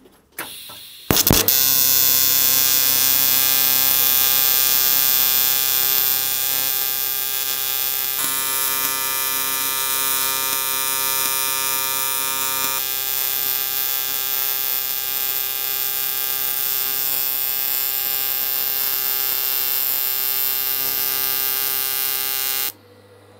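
AC TIG welding arc from an R-Tech TIG261 AC/DC inverter welder on an aluminium crankcase casting, buzzing at a steady pitch set by its 140 Hz square-wave AC frequency. The arc strikes with a brief crackle about a second in and cuts off suddenly near the end.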